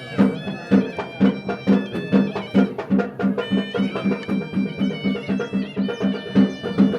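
Music: a melody of held notes over a steady drone, with a sharp beat about twice a second.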